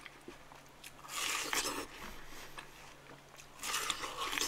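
Two crisp, juicy bites into a wedge of watermelon, one about a second in and another near the end, with faint chewing between.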